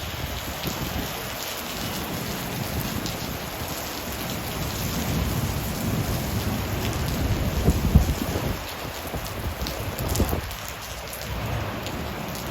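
Rain falling steadily in a thunderstorm, with a low rumble of thunder that swells to a peak about eight seconds in and then falls away.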